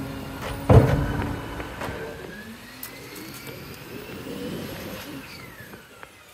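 Isuzu side-loader garbage truck: one loud bang about a second in, then the truck's engine and drivetrain whine rising steadily in pitch as it drives off, and falling away near the end.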